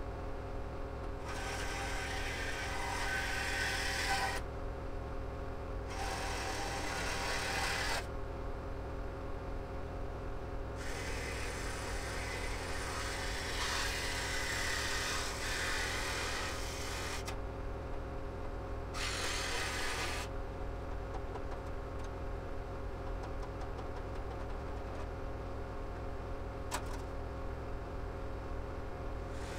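Reciprocating saw cutting through exhaust pipe to remove a catalytic converter, in four runs of a few seconds each with pauses between, the longest about six seconds. A steady engine hum runs underneath.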